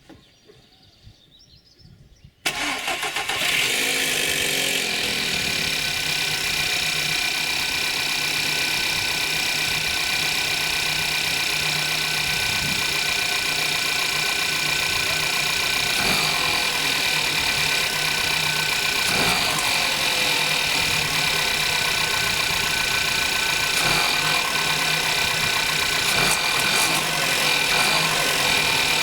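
A VW-group 1.2 TSI EA111 four-cylinder turbo petrol engine cold-starts about two seconds in and settles into a steady idle, with the timing chain rattling, the sign of a hydraulic chain tensioner not holding the chain tight on a cold start.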